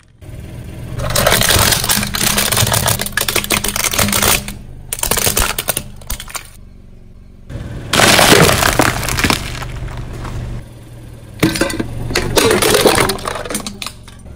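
A car tyre rolling over packets of jelly candy, the plastic wrappers crackling and crunching for several seconds; then over a pyramid of quail eggs, the shells cracking in a loud run of crunches; and near the end over a plastic toy container, which cracks and snaps. A low engine hum runs underneath.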